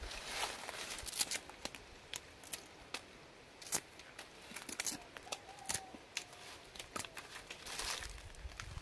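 Sugarcane rind being stripped from the stalk by hand: a run of irregular sharp cracks and tearing snaps as strips of fibrous peel split away. Near the end comes a denser crunching as the peeled cane is bitten into.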